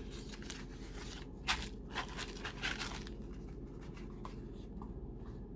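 Handling sounds from a small cardboard accessories box and plastic bags of small screws: scattered light clicks and rustles, the sharpest about one and a half to three seconds in, as the bagged screws come out onto the table.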